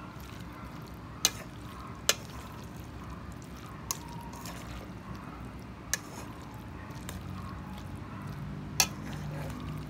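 A bare hand mixing mayonnaise-dressed diced Olivier salad in a stainless steel bowl: a steady wet squelching, broken by five sharp clicks spread through it.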